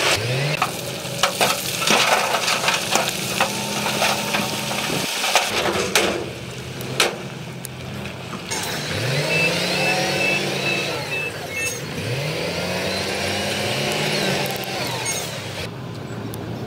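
Shantui crawler bulldozer's diesel engine revving up three times, its pitch rising and then holding, with clanks and rattles of tracks and rock in the first half. A short run of quick high beeps sounds around the middle.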